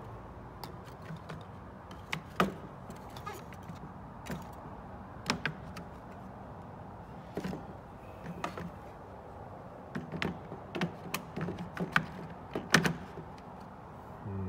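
Irregular sharp clicks and knocks of gauge-cluster parts being handled, a dozen or so spread unevenly, the loudest a few seconds in and again near the end, over a steady low hum.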